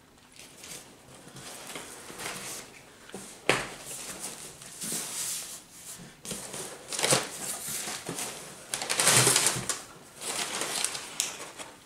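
Cardboard box being torn open by hand, with flaps and tape ripping and crumpled brown kraft packing paper rustling in irregular bursts. There is a sharp snap about three and a half seconds in, and the loudest rustle comes about nine seconds in.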